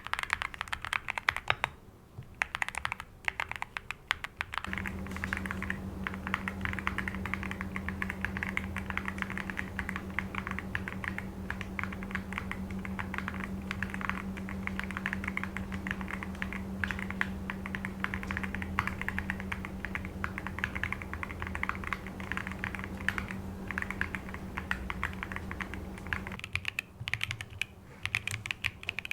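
Fast, continuous typing on a mechanical keyboard with Cupid switches: a dense run of key clicks and key strokes. A steady low hum sits under the typing from about five seconds in until a few seconds before the end.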